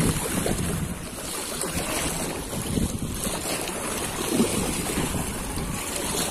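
Small waves washing against a stone embankment, with wind buffeting the microphone.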